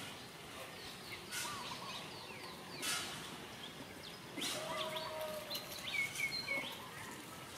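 Short, high chirping animal calls, several in quick runs with the loudest run about six seconds in, over scattered rustling crackles like dry leaves being moved.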